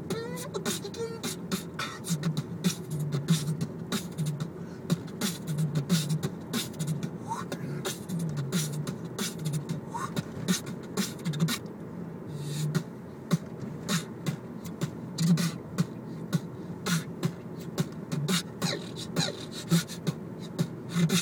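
A man beatboxing: a fast rhythm of sharp, snare-like clicks mixed with pulsed low humming bass tones. It is heard inside a moving car, over steady road noise.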